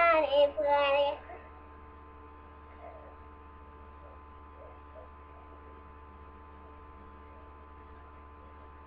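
A child's voice singing two short wavering notes in the first second, then a steady electrical hum with only faint scattered sounds.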